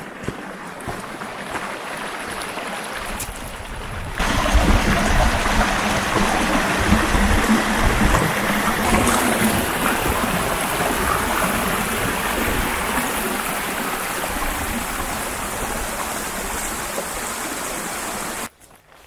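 Shallow moorland stream running over rocks. About four seconds in it becomes louder and closer, water tumbling over a small rock step, and it cuts off suddenly near the end.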